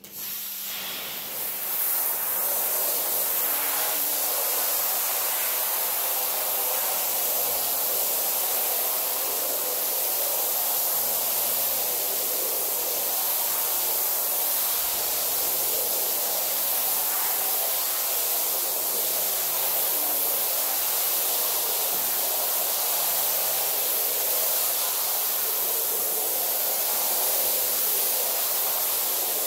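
Pressure washer jet spraying onto a mud-soaked rug: a steady hiss of high-pressure water and spray. It builds over the first couple of seconds, then holds steady.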